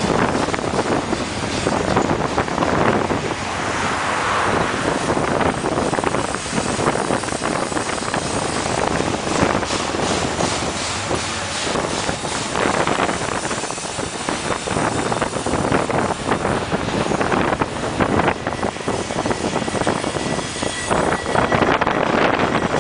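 A double-stack intermodal container train passing close by: a steady rumble of steel wheels on the rail, dotted with rapid clacks and knocks from the well cars. Wind buffets the microphone.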